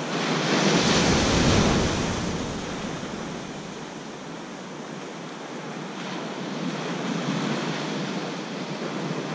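Ocean surf breaking and washing up a sandy beach, with wind buffeting the microphone. It is loudest in the first couple of seconds, with a deep rumble, then eases off and builds again near the end.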